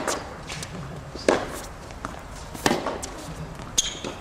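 Tennis ball struck back and forth by rackets in a rally: three sharp strikes about a second and a half apart, with fainter knocks between them. A shorter knock comes with a brief high squeak near the end.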